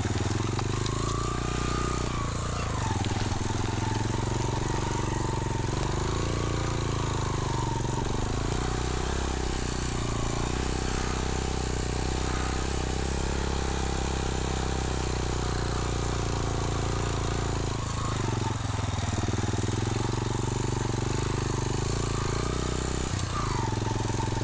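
Motorcycle engine running at low revs while the bike is ridden slowly down a steep, rocky track, with a few brief rises and falls in engine speed.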